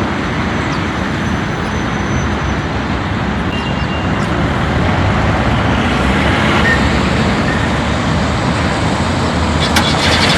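Steady, loud road traffic noise.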